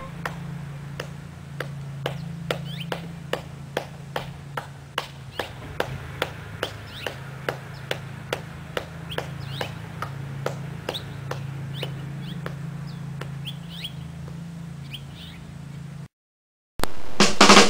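A long, even series of sharp clicks, about two and a half a second, several with a short high chirp, over a steady low hum. The clicks stop, there is a brief dropout, and music comes in near the end.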